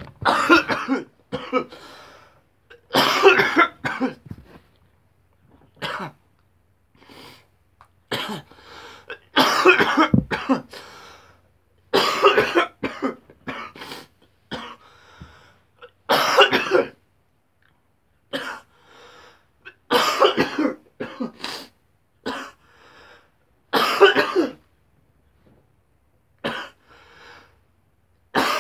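A man coughing hard in repeated fits, a loud burst every second or two with short pauses between, the harsh coughing that follows inhaling a dab from a dab rig.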